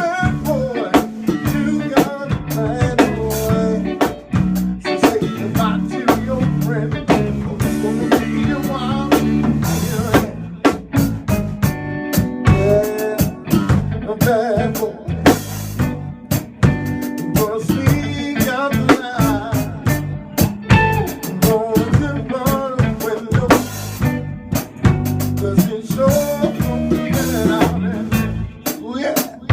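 A band playing music with a full drum kit, snare and bass drum hits keeping a steady beat, and a voice or lead instrument over it.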